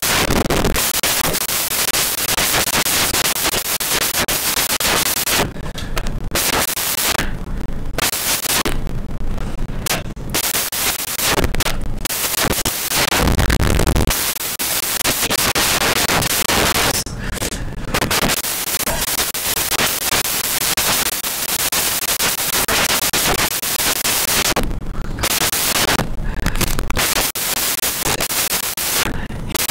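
Loud, harsh static-like noise with crackling, its hiss dropping out briefly several times.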